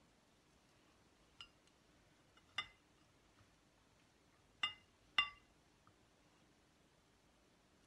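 A metal spoon clinking against a small glass bowl while scooping chopped nuts: four short, ringing clinks, the last two about half a second apart and loudest.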